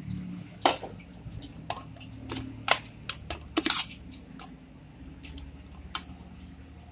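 A metal spoon tossing sliced cucumbers in an aluminium pot, with irregular sharp clinks of spoon on metal, most of them in the first four seconds and one more near the end, over a faint low hum.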